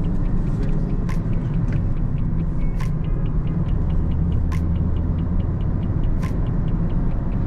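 Inside the cabin of a 2013 Kia Ceed with a 1.4-litre petrol four-cylinder, driving along: a steady low engine and road rumble. A few faint sharp clicks come about every second and a half to two.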